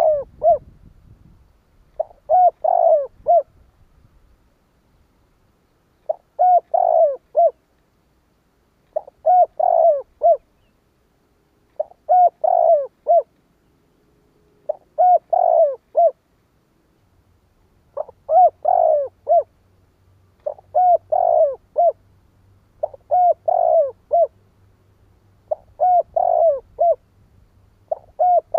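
Spotted dove cooing: a short phrase of several quick coo notes, repeated about every three seconds.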